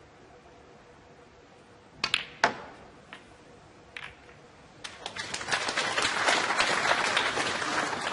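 Snooker cue tip striking the cue ball about two seconds in, then a sharp click of ball on ball and a few softer knocks as the balls run. From about five seconds an arena audience applauds the pot of the green and the cue ball landing in the pack of reds.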